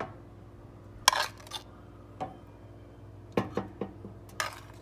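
Serving utensils clanking and scraping against a pan and plates as meatballs in sauce are dished up: a sharp clank about a second in, then a few lighter knocks and a short scrape near the end, over a steady low hum.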